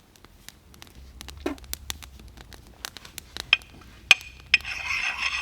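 Light clicks and taps of handling, then about four and a half seconds in a steady scraping begins as a Lansky puck sharpening stone is rubbed along a dull axe edge.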